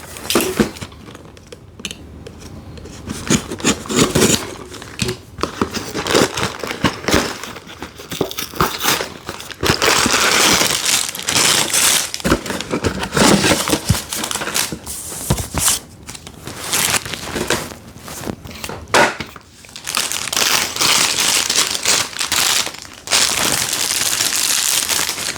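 A cardboard Lego set box being torn open and the plastic parts bags inside crinkling and rustling as they are handled, in irregular bursts of clicks and denser stretches of crinkling.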